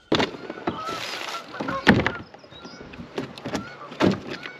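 Irregular knocks and clunks of a kayak and its gear being handled, with a short hiss about a second in.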